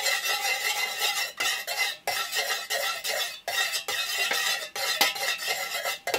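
A utensil stirring melted candle wax and fragrance oil in a stainless steel pouring pitcher, scraping against the metal sides without a break except for brief dips about every second. This is the oil being blended into the wax.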